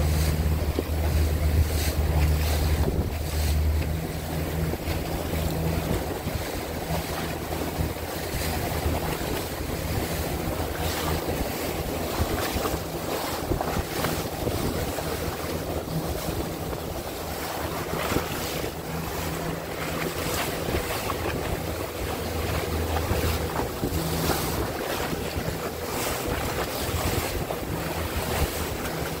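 A motorboat's engine runs steadily under heavy wind buffeting on the microphone and the wash of water. The low engine hum is strongest in the first few seconds, then fainter.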